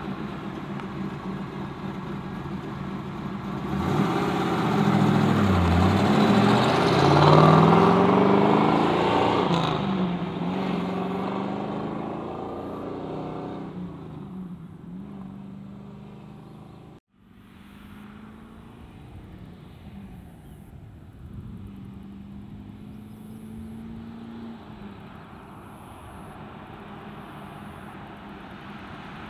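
1969 Camaro Z28's DZ 302 small-block V8, through dual exhausts with a stock-style muffler, accelerating away with its pitch climbing and dropping several times, loudest several seconds in, then fading into the distance. After a sudden break it is heard again, quieter, as the car drives back.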